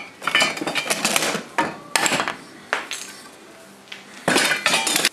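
Hand file worked over steel on a wooden bench pin: a series of uneven scraping strokes, some starting with a sharp click, with a longer run of strokes near the end.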